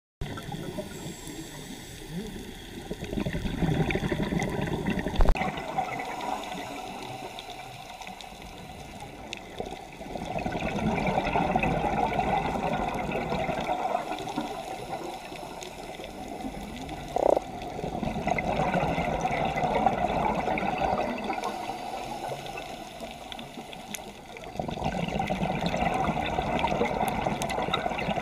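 A scuba diver breathing through a regulator, heard underwater: four swells of rushing exhaled bubbles, each a few seconds long and roughly seven seconds apart, with quieter inhalations between.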